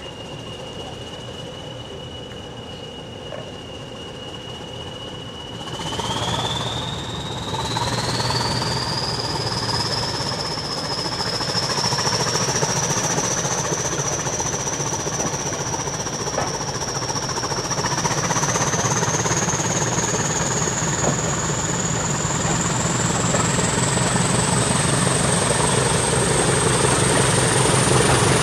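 English Electric Class 20 diesel locomotive 20087 pulling away from a station, heard from the train behind it: its eight-cylinder engine opens up about six seconds in and gets louder. The turbocharger whistle climbs in pitch in steps as the engine works harder and the train gathers speed.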